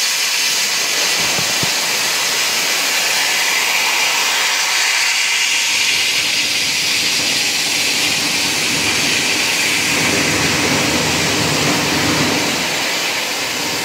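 Steady loud hiss of live steam exhausting to the atmosphere from the steam-driven changeover servo on a System Winterthur compound rack locomotive, as its piston moves the rotary valves into compound (rack) working. A lower rumble joins for a couple of seconds near the end.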